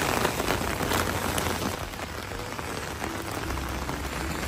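Rain falling fast onto an open umbrella overhead: a dense, steady hiss of many small drop hits.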